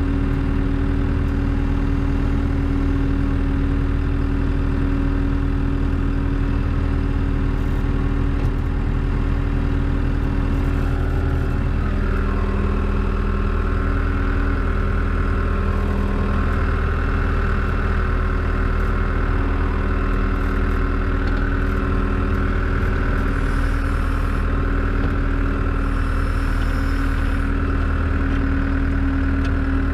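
Tractor engine running steadily, heard from inside the cab. About twelve seconds in, a higher steady whine joins it.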